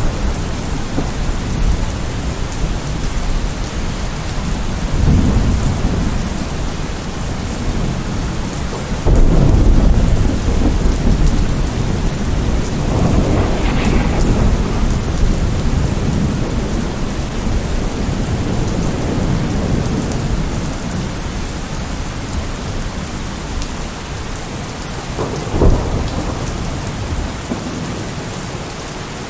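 Steady heavy rain with rolling thunder. The loudest rumble breaks about nine seconds in and rolls on for several seconds. Another peal comes soon after with some crackle, and a shorter, sharper crack comes near the end.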